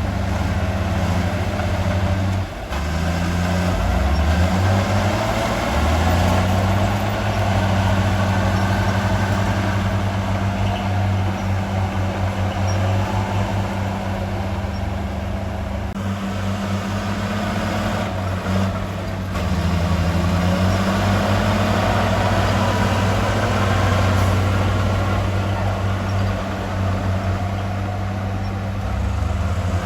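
Heavy diesel engine of earthmoving equipment running under load, its low drone shifting up and down several times as the revs change.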